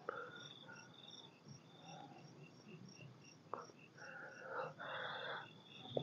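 Crickets chirping faintly in an even pulse, about three chirps a second, with a higher trill coming and going. Around four to five seconds in, a soft rustle of corn leaves brushed as the plants are pushed through.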